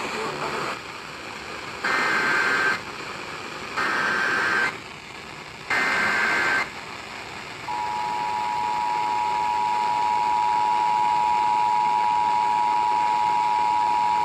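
Emergency Alert System activation: three bursts of SAME header data, each a harsh buzzing screech just under a second long, about a second apart. About eight seconds in, the steady two-tone EAS attention signal begins, announcing that an emergency alert message follows.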